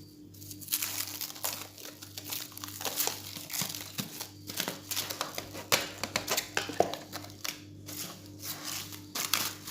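Food wrap crinkling and crackling in irregular strokes as it is pulled and pressed over a dish of marinated chicken, with a faint steady low hum underneath.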